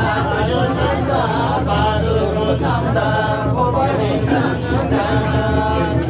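Several men's voices chanting together in a jhakri shamans' ritual recitation, unaccompanied, in a steady, sing-song drone.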